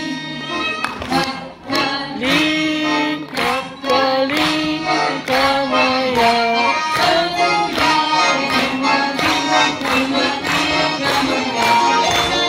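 Lively traditional Russian folk tune played on accordion and violin, with a woman singing over the accordion's regular chords.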